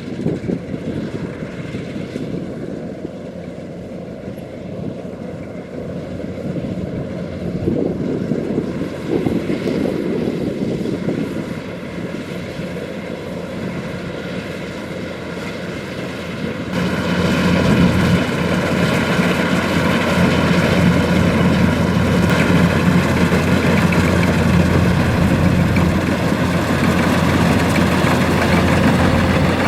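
Kubota DC-105X rice combine harvester's diesel engine and threshing machinery running with a steady drone, becoming much louder a little past halfway.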